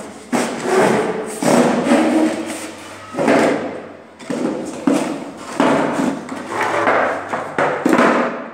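Wooden chair scraping and bumping on a stone floor as it is pushed about, in about ten rough bursts, each starting with a knock.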